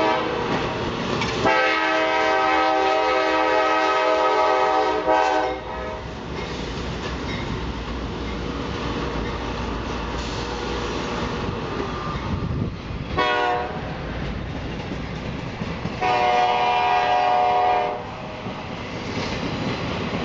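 A freight train rolling past with a steady rumble and clatter of wheels on rail. A diesel locomotive's air horn sounds a long blast about a second and a half in, a short toot past the middle, and another long blast near the end.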